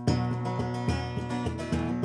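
Steel-string acoustic guitar being strummed, chords ringing, with a fresh strum about once a second.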